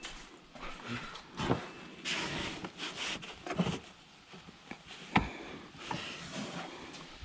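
Scattered handling noises from working on the car by hand: light knocks, clicks and rustling, with one sharp click about five seconds in.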